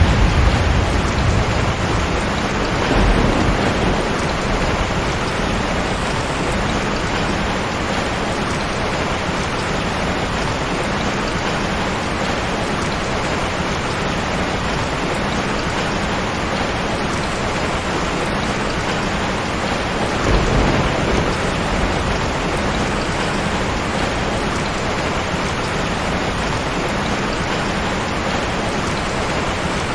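Heavy rain falling steadily during a thunderstorm, with low rolls of thunder rumbling at the start, about three seconds in and again about twenty seconds in.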